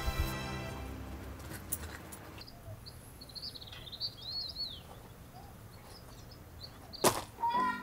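Small birds chirping, a short run of quick arching chirps in a quiet background. A single sharp knock comes about seven seconds in.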